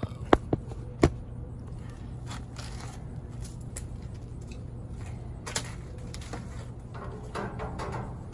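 A few sharp knocks in the first second as the camera is handled and set down, then faint clicks of hand work on the grill's wiring over a low steady hum.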